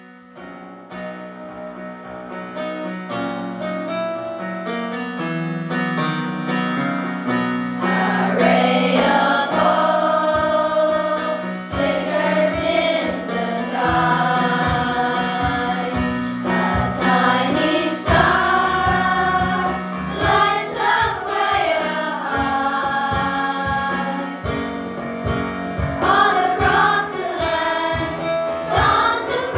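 Children's choir singing a Christmas carol over an instrumental accompaniment. The accompaniment plays alone at first, and the voices come in about eight seconds in.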